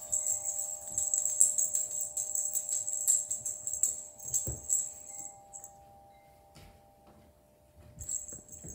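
Rapid jingling of a cat's feather wand toy being waved, stopping about halfway through and starting again near the end, with a soft thump about halfway through as the Bengal cat lands on the wooden floor.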